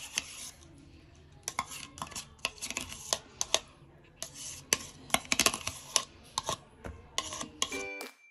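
Spoon clinking and scraping against a stainless steel bowl while yogurt and spices are spooned over mushrooms: a loose run of sharp metallic clinks with some rubbing in between.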